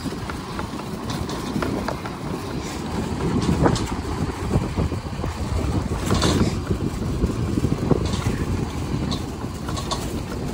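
Motor scooter being ridden, its engine and road noise running steadily, with a few sharp knocks along the way.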